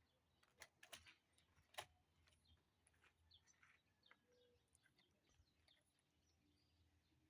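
Near silence with faint bird chirps here and there, and a few soft clicks in the first two seconds.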